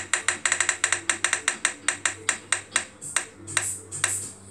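Roulette-wheel app on a phone playing its ticking spin sound, the clicks slowing from about eight a second to a few spaced ticks as the wheel comes to rest.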